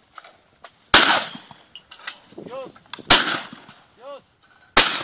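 Shotgun shots at flying clay targets, three in the space of about four seconds: about a second in, about three seconds in, and near the end. Each report is sharp and trails off with a long echo.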